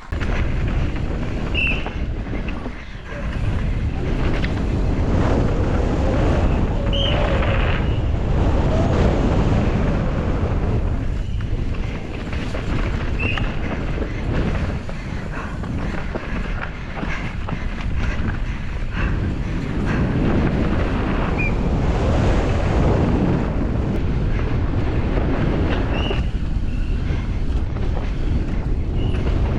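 Wind buffeting the microphone, with the rumble and rattle of a mountain bike riding over rough ground. A few brief high squeaks break in now and then.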